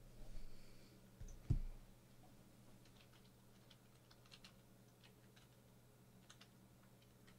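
A hard plastic card case being handled and set down, with one soft knock about a second and a half in, followed by scattered faint light clicks.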